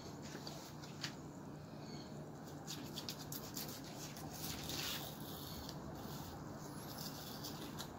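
Fillet knife scraping and cutting along the side of a golden trevally, scoring guide lines through the skin toward the center bone. A few light clicks come from handling on the cutting board.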